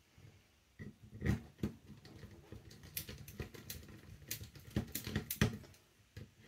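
Irregular small clicks and taps of hands and a screwdriver working a Torx screw into a version 3 airsoft gearbox shell.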